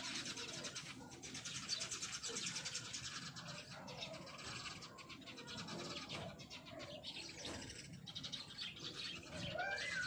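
A dense chorus of birds calling in the trees: a continuous high, rapid chittering, with lower curving calls mixed in and a clear sliding call near the end.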